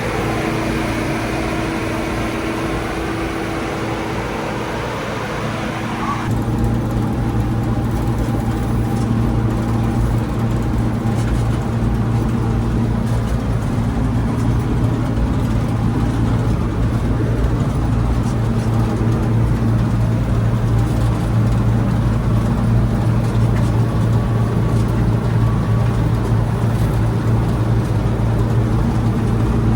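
Old Bizon combine harvester running steadily with a low engine drone. About six seconds in, a higher rushing noise stops and the low drone gets louder.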